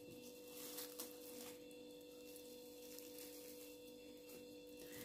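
Near silence with a steady faint electrical hum, and a few faint crinkles of cling film being tucked around a glass baking dish about a second in.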